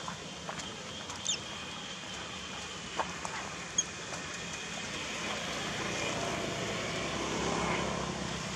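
Steady outdoor background noise with a low hum that swells slightly in the second half, broken by a few short sounds: a quick falling chirp after about a second and two sharp clicks around three to four seconds in.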